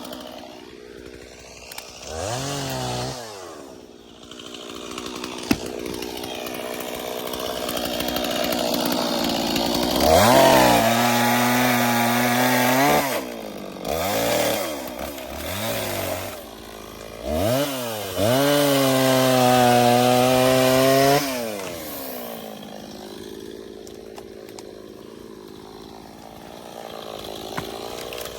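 Two-stroke chainsaw revving up and down while cutting through downed trees. Twice it is held at full throttle for about three seconds, with short bursts of throttle between, and it drops back to a quieter low-rpm run near the end.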